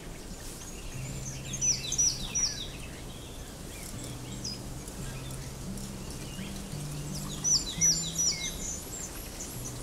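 A small songbird singing two short phrases of quick, high notes that each slide downward, the first about two seconds in and the second near eight seconds.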